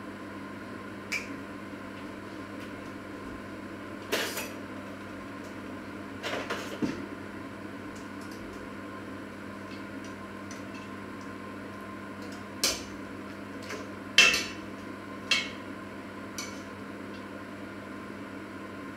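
A metal utensil knocking and scraping against a steel cooking pot while stirring, in scattered clinks a second or more apart, over a steady electrical hum.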